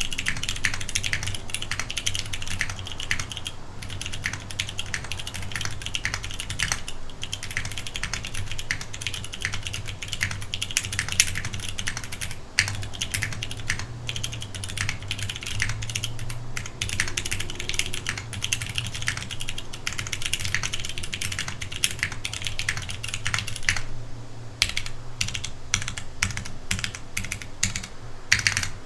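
Keystrokes on a custom-built keyboard in a fast, continuous stream of clicks, with a brief lull about two-thirds of the way through.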